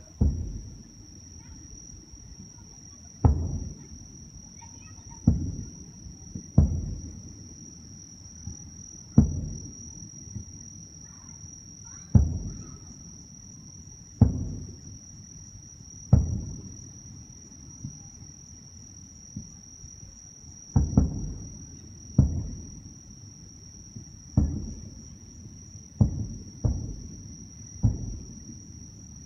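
Aerial firework shells bursting: about fifteen sharp booms at uneven intervals, each followed by a rolling echo, some coming in quick pairs. Behind them runs a steady high-pitched insect trill.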